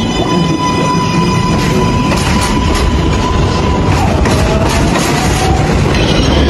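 Subway train running: a steady electric motor whine over the low rumble of wheels on rails, with the whine's pitch shifting about two-thirds of the way through.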